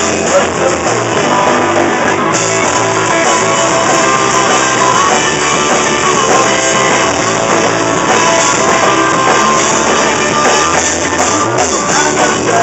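Live rock band playing an instrumental stretch: electric guitar over a drum kit with cymbals and an upright bass.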